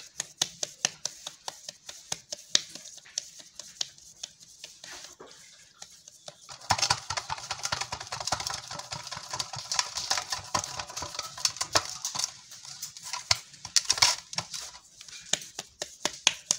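Bajra (pearl millet) dough being patted and pressed between the palms into a ball over a steel bowl: a quick run of soft slaps, about three a second, with a denser stretch of rubbing and scraping for several seconds in the middle.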